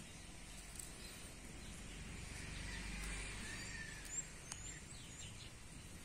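Faint outdoor background of scattered short bird chirps over a soft low rumble, with a single sharp click a little after four seconds in.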